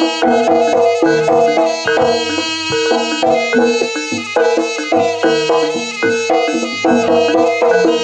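Traditional Javanese jaranan music: hand drums and percussion beating a busy rhythm under a reedy melody line.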